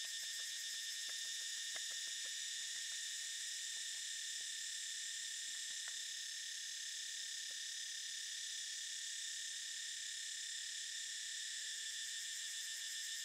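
Steady chorus of insects, several high-pitched trills layered together, with a few faint small ticks in the first few seconds and again about halfway through.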